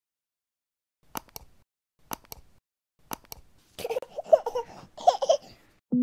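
Three quick mouse double-clicks, about a second apart, then a small child laughing for about two seconds.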